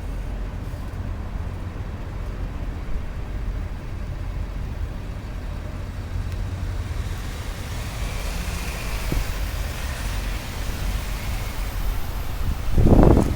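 Road traffic over a steady low rumble, with a vehicle driving past during the second half. Near the end a short, loud buffet of wind hits the microphone.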